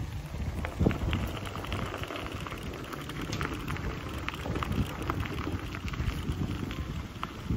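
Footsteps crunching on gravel, a crunch about every half second, over a low wind rumble on the microphone.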